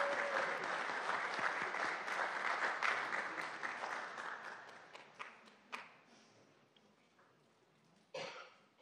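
Audience applauding, dying away over about five seconds into a few last scattered claps. A brief noise sounds near the end.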